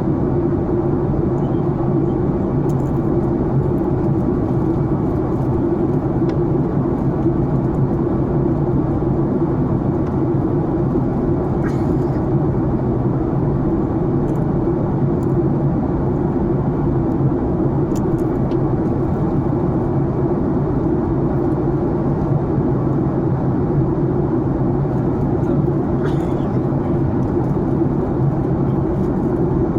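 Steady drone of an airliner in climbing flight heard from inside the passenger cabin: engine and airflow noise with a low hum that holds its pitch, and a few faint clicks.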